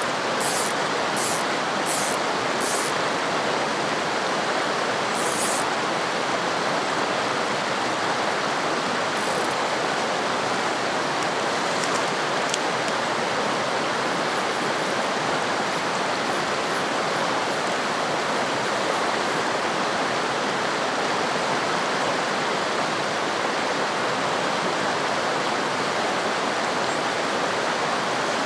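Rushing water of a fast, rocky mountain stream running over boulders: a steady, even rush that does not change.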